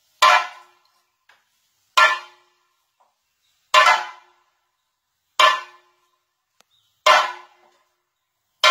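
Chenda drum ensemble playing thayambaka: six loud single strokes struck together, about one every 1.7 seconds, each ringing briefly and dying away before the next.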